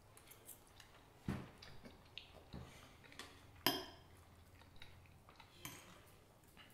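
Metal forks clinking and scraping against dinner plates as two people eat, with a few sharp clinks, the loudest just past halfway, and faint chewing between them.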